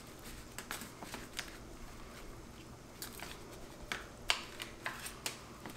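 Chicken thighs being turned over by a gloved hand in a disposable aluminium foil pan: scattered light ticks and crinkles of the thin foil and the glove, with a run of sharper ticks a little past halfway.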